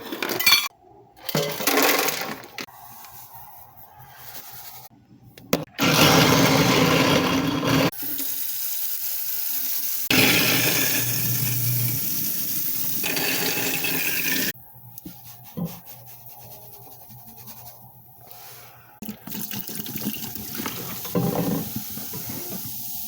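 Water running into a kitchen sink in several loud stretches, with short knocks and clinks in the quieter gaps between them.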